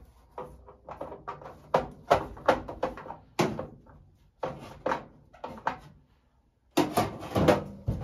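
Irregular knocks and clatter of metal furnace parts being handled inside a furnace cabinet. There is a short pause about six seconds in, then a louder cluster of knocks.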